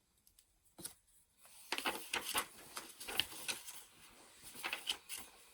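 Paper rustling with light clicks, as a picture book is handled and its pages turned. It lasts from about one and a half seconds in until near the end.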